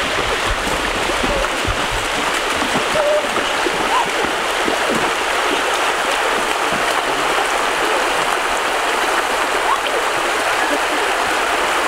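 Steady rush of flowing stream water over rocks.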